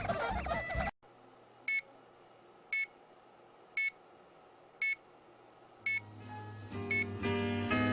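Five short electronic beeps, about one a second, each a single pitched tone, right after the previous sound cuts off abruptly; music comes in near the end.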